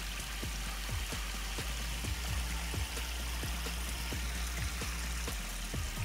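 Waterfall water falling and splashing on rock: a steady hiss with many quick dripping plops, several a second.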